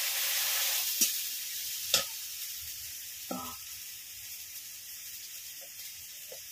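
Spice paste in hot mustard oil sizzling hard in a kadai as water from the spice bowl hits it. The hiss fades after about a second. A steel bowl clinks sharply against the pan twice, about one and two seconds in.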